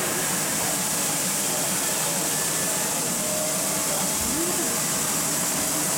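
Indistinct crowd chatter in a large exhibition hall over a steady background hiss, with no distinct mechanical sound standing out.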